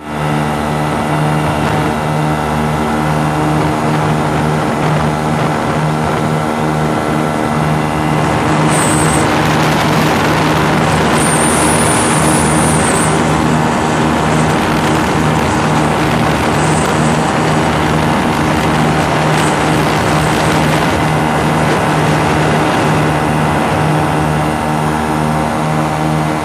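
Ultralight aircraft's engine and propeller running steadily in flight, heard from on board as a loud, even drone, with a rushing hiss that grows stronger about eight seconds in.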